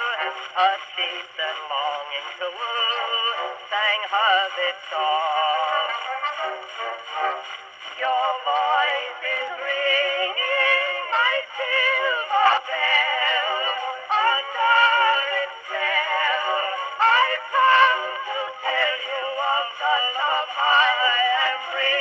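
An early acoustic recording of a vocal duet with accompaniment, played from a cylinder record on an Edison Home phonograph through its horn. The singing has a wavering vibrato, and the sound is thin, with no deep bass and little top.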